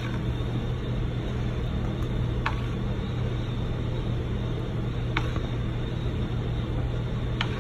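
A steady low machine hum with a hiss over it, and a faint short click about every two and a half seconds.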